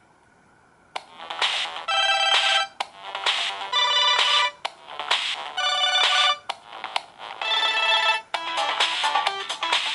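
Samsung GT-C3752 mobile phone ringtone starting about a second in: an electronic melody in short repeated phrases, changing to a quicker run of short notes about eight seconds in.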